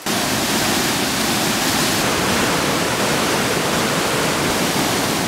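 Rushing stream rapids: water tumbling white over rocks in a loud, steady rush.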